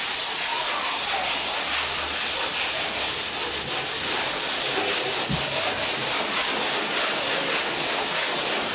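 150-grit sandpaper on a handled hand sander scrubbing quickly over dried spackle patches on drywall: a steady, loud scratching rasp that runs on without a break.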